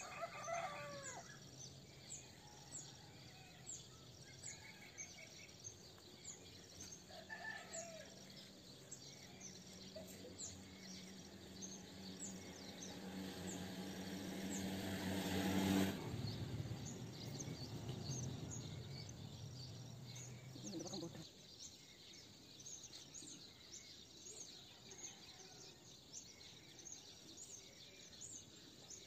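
Outdoor ambience of birds calling, with short high chirps repeating about once a second and a rooster-like call near the start. A low, steady hum swells for several seconds about halfway through, stops suddenly, and a lower hum carries on for a few seconds more.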